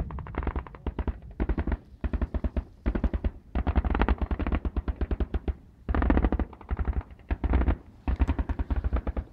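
Automatic gunfire in many short, rapid bursts one after another, each burst a quick string of sharp cracks.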